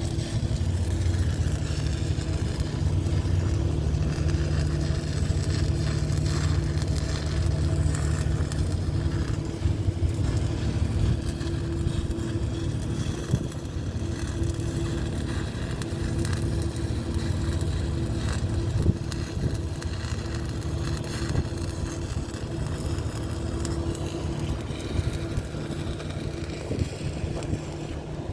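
Electric arc welding: a continuous fine crackle over a steady low machine hum.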